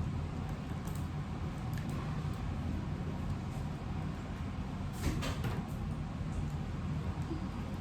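Steady low background hum, with a brief cluster of light clicks about five seconds in.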